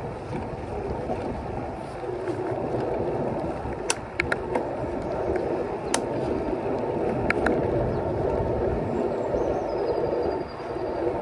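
Bicycle rolling along a path: steady tyre and wind rumble on the microphone, with a handful of sharp clicks and rattles in the middle as the bike goes over bumps.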